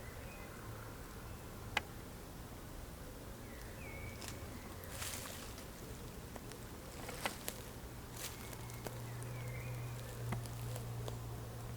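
Footsteps through woodland undergrowth, with scattered twig snaps and rustling, and a few short bird chirps. A low steady hum grows louder near the end.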